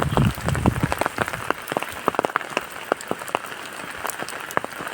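Rain falling steadily, with many separate drops striking close by as sharp ticks and splats over a constant hiss.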